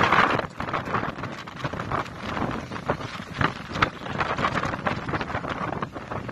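Wind buffeting the microphone outdoors: an uneven, gusty rumble and crackle with a few sharp pops.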